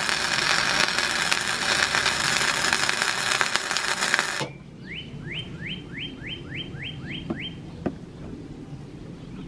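Arc welding crackling steadily while a steel brace is tack-welded, cutting off suddenly about four and a half seconds in. Then a bird calls, a quick run of about nine rising chirps.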